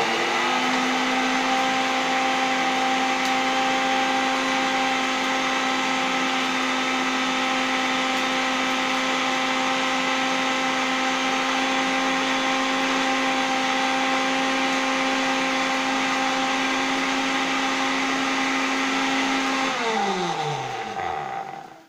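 Electric blender's grinding jar running steadily at full speed, milling dry whole spices and herbs into powder. Near the end the motor is switched off and spins down with a falling hum.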